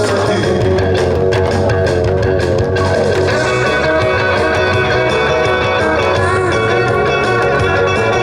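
Instrumental break of an upbeat trot twist song played loud and steady, with guitar to the fore and no singing. Some sharp drum strikes come in the first few seconds.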